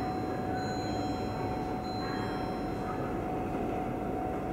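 Komatsu excavator on a track-maintenance vehicle running steadily: an even engine rumble with a constant high whine over it.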